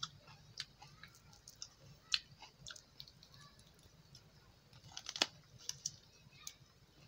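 Close-up eating sounds: a cooked chicken leg torn apart by hand, then bitten and chewed. Faint sharp clicks and crackles, scattered, with a cluster about five seconds in.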